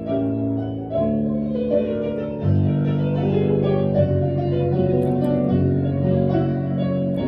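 Instrumental music without voice: slow sustained chords that change every second or so, with a keyboard-like sound.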